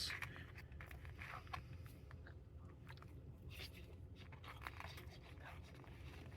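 Faint eating sounds: scattered soft clicks and chewing as a fork takes up sausage, scrambled egg and hash brown and the mouthful is chewed.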